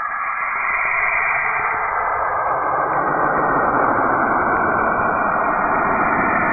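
Sonified radio recording attributed to the planet Saturn: electromagnetic emissions converted into sound, heard as a steady rushing hiss with faint whistling tones. It swells and deepens over the first two seconds, then holds steady.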